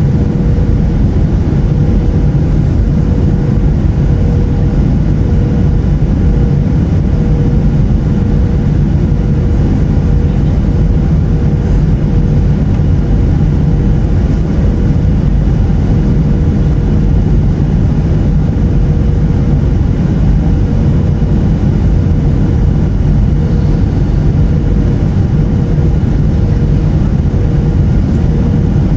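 Steady cabin noise of a jet airliner descending on approach to land: a deep rumble of the turbofan engines and rushing air heard through the fuselage, with a steady hum on one pitch above it.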